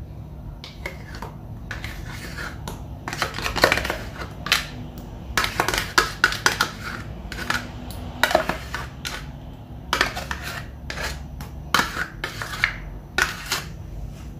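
A spoon scraping and tapping against plastic dessert pots and a glass bowl, scooping out chocolate pudding: irregular clicks, knocks and scrapes.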